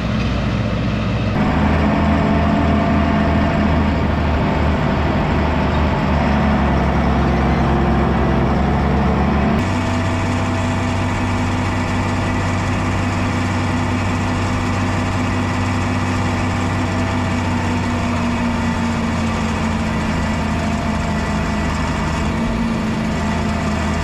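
Tractor diesel engine running at a steady speed. The engine note shifts abruptly twice, about a second and a half in and again near ten seconds in.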